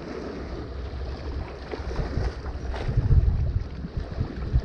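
Wind buffeting the microphone in uneven gusts, heaviest about three seconds in, over small waves lapping at the rocks.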